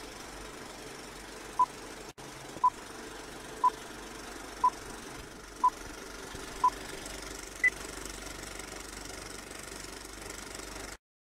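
Old-film countdown leader sound effect: a steady film-projector whir with crackle, and a short beep once a second six times, then one higher beep. It all cuts off suddenly near the end.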